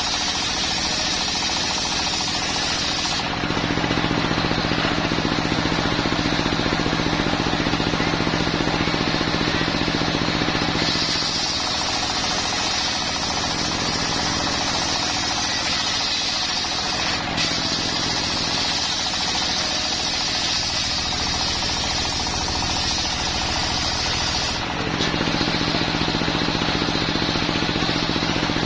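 Homemade circular sawmill running, its stationary single-cylinder diesel engine driving a large circular blade through coconut-palm wood. The steady engine drone runs under a high hissing cutting noise that comes and goes, changing about every six to eight seconds as the blade works through successive passes.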